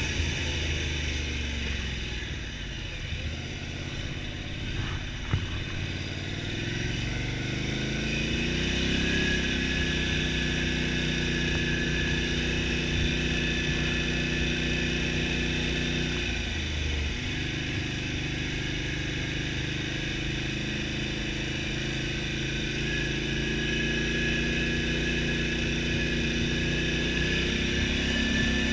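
Polaris Sportsman XP 1000 ATV's twin-cylinder engine running under way. The engine note falls over the first few seconds, climbs again as it picks up speed and holds steady, dips briefly about halfway through, then rises slowly once more, with a thin steady high whine over the later part.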